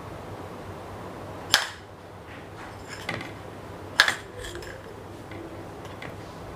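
Sharp metallic clinks of a steel puttu tube and its push rod as steamed puttu is pushed out onto a plate. There are two loud clinks, about a second and a half in and again about four seconds in, and a fainter one near three seconds, over a steady faint hiss.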